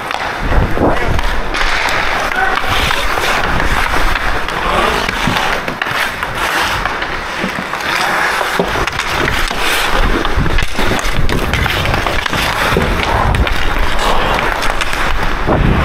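Hockey skate blades carving and scraping on rink ice in close, continuous strides, with occasional sharp clacks of stick on puck.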